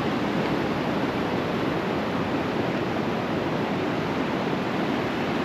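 Sea surf washing onto a beach: a steady rushing noise with no breaks.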